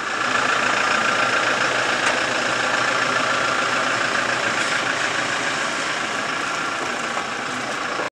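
Toyota Innova Crysta's engine running steadily as the MPV pulls out through a gate and moves off, fading slightly toward the end.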